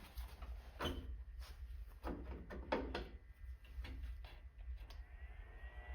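A series of irregular clicks and knocks from handling metal parts and tools. About five seconds in, a steady high whine starts and rises slightly in pitch: the handheld induction heater switching on to heat a rusted nut.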